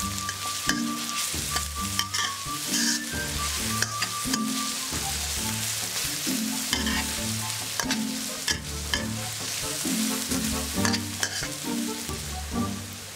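Chopped shallots, garlic and chilies sizzling in hot oil in a metal pan as a metal spatula stirs them, with frequent sharp clicks and scrapes of the spatula on the pan, under background music.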